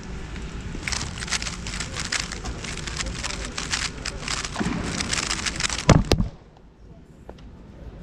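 Rapid clattering clicks of a GAN 12 M Maglev magnetic speedcube being turned fast through a 3x3 speedsolve, for about four and a half seconds. Then comes a loud thump as the cube is set down and both hands slap the Speed Stacks timer pads to stop it.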